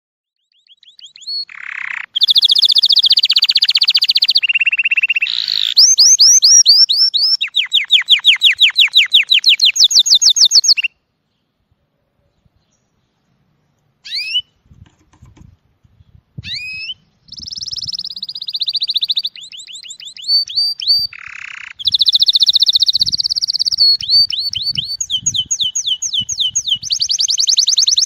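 Domestic canary singing: long tours of rapid, evenly repeated high trills and whistled notes, with a pause of about three seconds near the middle.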